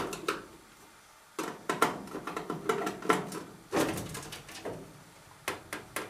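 Sheet-metal access panel of a furnace being worked loose and lifted off the cabinet: scattered knocks, clicks and scrapes in several short clusters.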